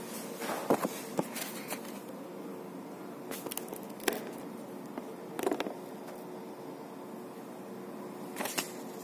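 Steady room hum with a few scattered light clicks and knocks.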